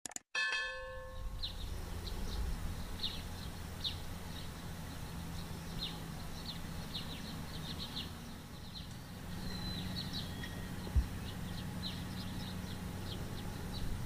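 A short bell-like ding at the very start, then the low steady hum of a Kubota DC-70 combine harvester's diesel engine running some way off, with birds chirping over it. A single brief thump comes near the end.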